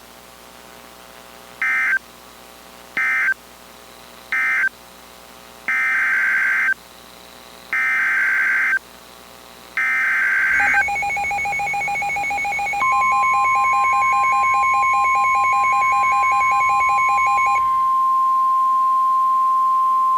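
EAS SAME data bursts from a NOAA Weather Radio broadcast: three short buzzy bursts marking the end of one warning, then three longer one-second bursts, the coded header of the next alert. About a second later a rapid two-pitch beeping starts. Around two seconds after that, the steady single-pitch NOAA Weather Radio warning alarm tone comes in, and the beeping stops partway through while the alarm tone holds.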